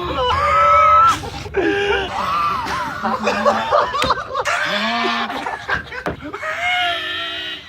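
High-pitched wheezing laughter in short bursts, several clips cut back to back.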